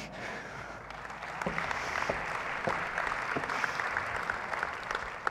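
Audience applauding. The clapping swells over the first second or so and dies away near the end.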